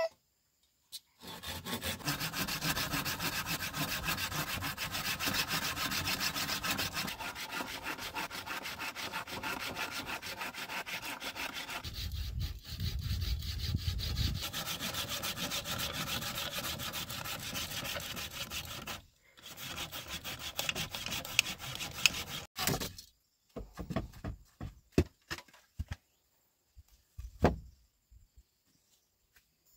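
Hand saw cutting through a wooden pole in steady back-and-forth strokes, with a short break about two-thirds through. Near the end the sawing stops and gives way to a few short knocks and scrapes.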